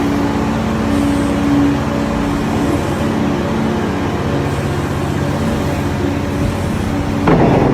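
Large excavator's diesel engine running hard under hydraulic load while digging, its pitch shifting every second or so, with a sudden loud crash near the end.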